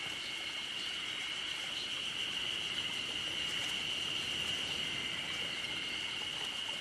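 Insects buzzing in chorus: a steady high-pitched drone that neither pauses nor changes.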